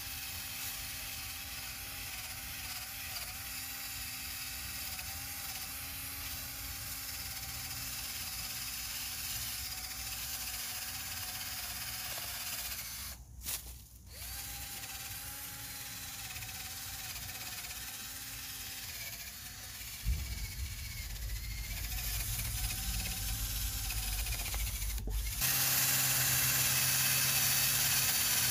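Milwaukee 12-volt cordless drill spinning a wire wheel against tree bark: a steady motor whine over the rasp of the wire bristles. It stops briefly about halfway and starts again, and near the end it runs louder and closer.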